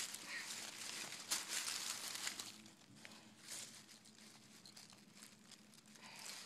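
Rustling and crunching with a few sharp clicks, louder for the first couple of seconds and fainter after that.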